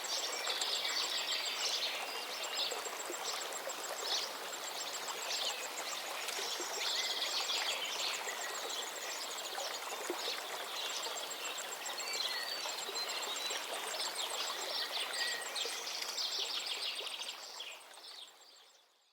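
Several songbirds singing and chirping over the steady rush of a river. The whole sound fades out near the end.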